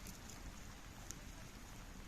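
Wood fire crackling faintly: a low steady hiss with a few sharp pops, the clearest about a second in.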